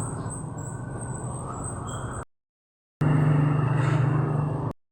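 Car engine running steadily, in two short edited clips with a silent gap between them; the second clip is louder, with a strong low hum.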